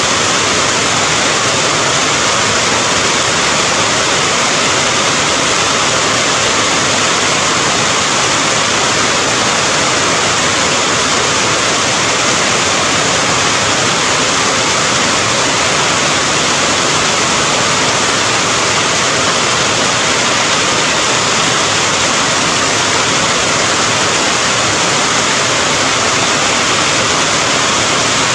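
Steady heavy rain: a dense, even hiss with no separate drops or changes.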